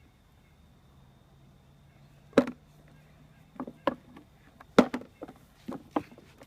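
Sharp knocks and clacks of toy construction vehicles being handled in dirt, scattered irregularly a second or so apart after a quiet start, the loudest about two and a half and five seconds in.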